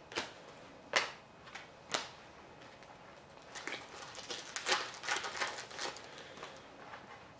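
Hockey trading cards handled by hand, cards flicked and slid off a stack. There are a few separate crisp clicks in the first two seconds, then a quick run of light ticks and rustles for a couple of seconds past the middle.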